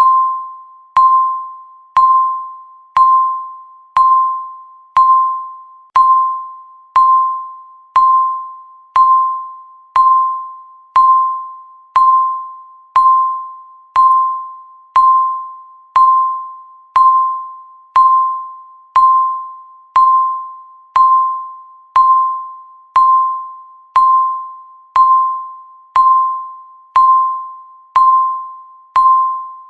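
Countdown timer's electronic beep: one bell-like tone of the same pitch struck once a second, each sharp at the start and fading away before the next.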